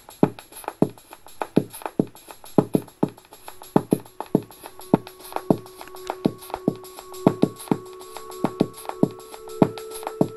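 Electronic music with a steady drum-machine beat of about two hits a second, played through a homemade laminated wooden soundbar speaker. A held synth note comes in about four seconds in and steps up in pitch near the end.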